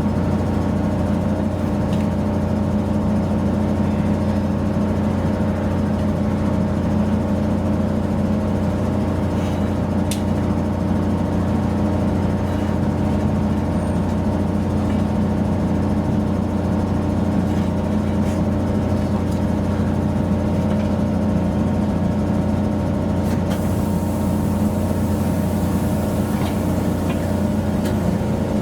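Steady mechanical hum of a motor or engine running at a constant speed, with a faint high hiss joining about five seconds before the end.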